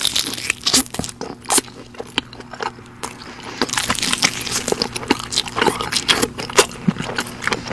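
A person eating close to the microphone, chewing a mouthful of sweet potato with harissa, with many small wet clicks and crunches throughout.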